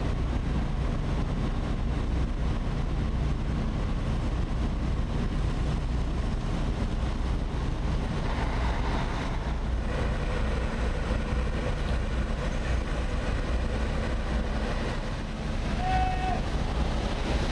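Steady low rumble of diesel engines running: the fish trucks and the fishing boat's crane machinery. A short high tone sounds near the end.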